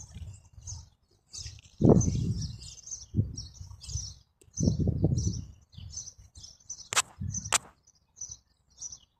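Small birds chirping in quick, continuous short calls, over intermittent low rumbles, with two sharp clicks about seven seconds in.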